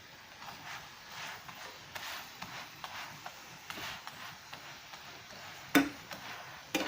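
Parotta cooking in ghee on a pan: faint scrapes and light taps against the pan over a soft sizzle, then two sharp knocks near the end.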